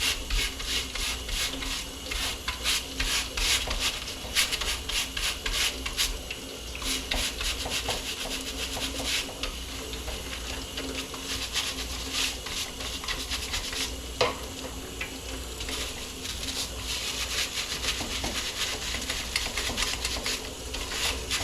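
Brush scrubbing caked, stuck birdseed out of a bird feeder: rapid scratchy strokes, several a second, with a single sharp click about two-thirds of the way through.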